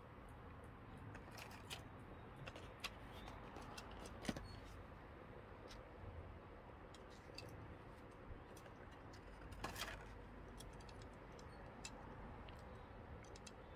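Near silence: faint room tone with scattered small clicks, the clearest about four seconds in and again near ten seconds.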